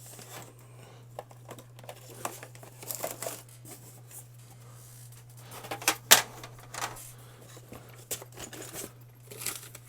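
Rustling, crinkling and scattered sharp clicks of an HDMI cable and other things being rummaged for and handled, the loudest clicks about six seconds in, over a steady low hum.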